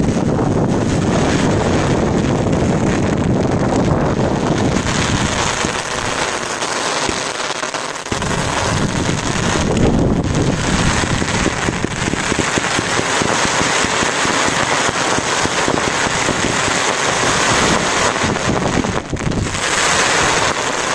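Consumer fireworks going off in a dense, continuous barrage of rapid bangs and crackling, with no break.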